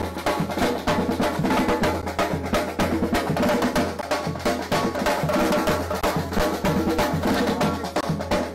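Street percussion band playing a fast, steady rhythm on large bass drums and snare-type drums struck with sticks.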